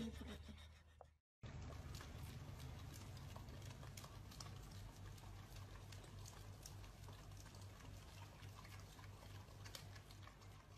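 Faint wet licking from two husky-type dogs, an adult and a puppy, lapping at an ice cream cone: soft irregular clicks over a low steady hum, after a brief cut to silence about a second in.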